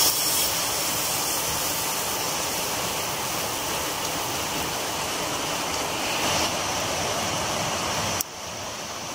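Rice batter sizzling on a hot iron griddle over a wood fire, a steady hiss. It drops suddenly to a quieter hiss near the end.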